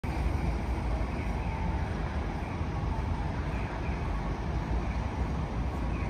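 Steady outdoor city ambience: a low, even rumble of traffic noise.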